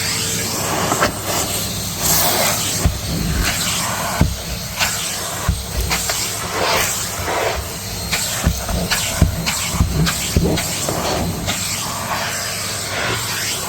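Numatic Hetty canister vacuum cleaner running with a steady rushing hiss of suction. The nozzle knocks and scrapes irregularly against the stairs as it picks up dust.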